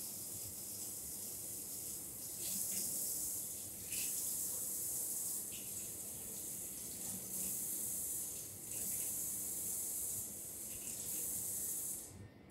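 Aerosol hairspray sprayed over a finished haircut in several hissing bursts of about a second each, stopping suddenly near the end.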